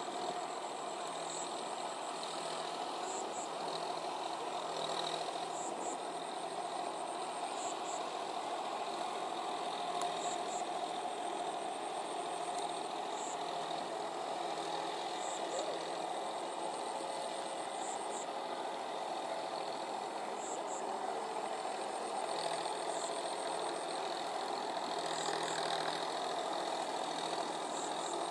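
John Deere 5045D tractor's three-cylinder diesel engine running steadily as the tractor pulls an implement through wet paddy mud on half cage wheels.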